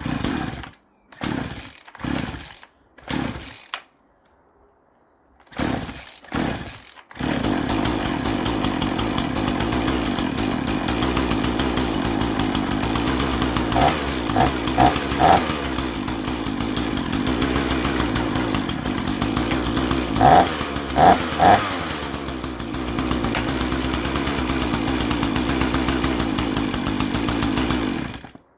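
Sovereign PCS38Z two-stroke chainsaw being pull-started cold with the choke on: several short bursts on the cord pulls, then it catches about seven seconds in and runs steadily. It is briefly revved three times around the middle and three times again later on, then stops abruptly near the end.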